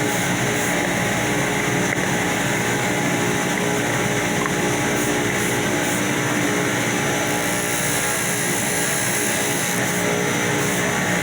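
Power sander running steadily, its motor giving a continuous whirr with no pauses.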